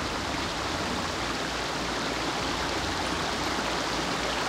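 Small woodland brook running over stones and little cascades: a steady rush of splashing water.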